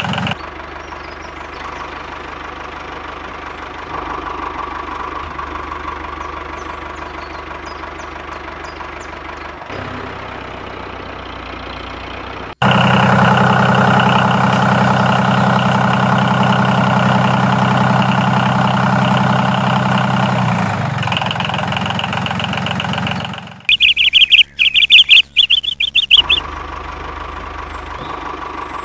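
Toy mini tractor running with a steady engine-like drone. Partway through it turns louder and deeper for several seconds, then comes a few seconds of loud, choppy high chirping before the steady running sound returns.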